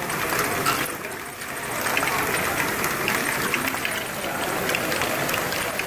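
LEGO Great Ball Contraption modules running: motorised plastic lifts and gears clattering steadily, with many small clicks of plastic balls being moved along.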